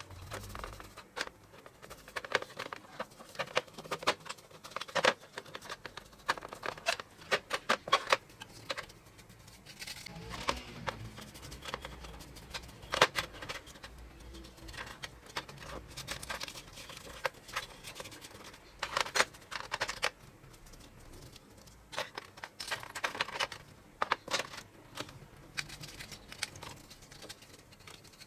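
Hand work on a small metal toy truck's parts: irregular clicks, taps and short scraping strokes, in loose clusters.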